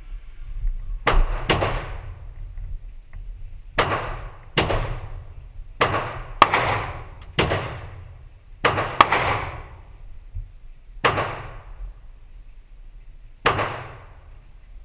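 AR-15 rifle gunshots in an indoor range lane: about eleven single shots at uneven spacing, several close pairs among them, each trailing off in a short echo.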